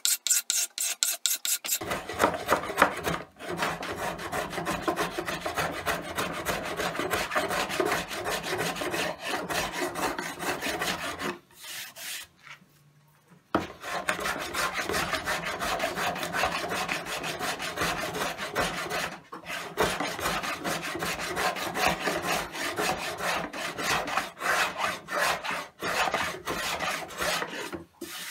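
Steel card scraper drawn in quick strokes across the top edge of a dovetailed wooden box, shaving the wood. It is followed by a long run of rapid rubbing strokes on the wood, broken by a pause about 11 seconds in.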